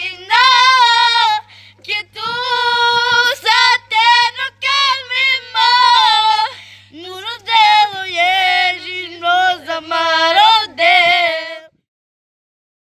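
A high voice singing unaccompanied in long phrases with a wide, wavering vibrato, over a faint steady low hum; the singing cuts off about a second before the end.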